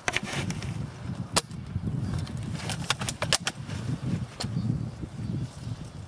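Airsoft guns firing single shots, heard as sharp pops or clicks at irregular intervals, with a quick run of about five about three seconds in. A low rumble runs underneath.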